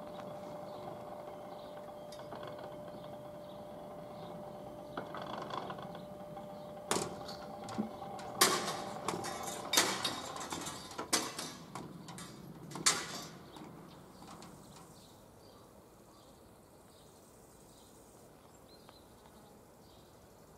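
Old wire-operated mechanical level-crossing barriers closing: a steady whine while the striped booms swing down, then a string of sharp metallic clanks and rattles as the booms and their wire-and-pulley gear come down and settle, after which it goes quiet.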